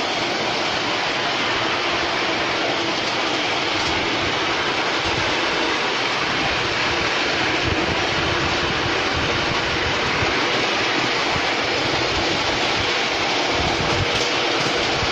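Ride-on miniature railway train running along its track, heard from on board: a steady rolling noise of wheels on the rails with an irregular low rumble.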